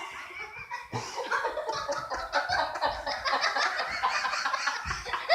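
Rapid, chicken-like clucking and chatter, many short calls in quick succession.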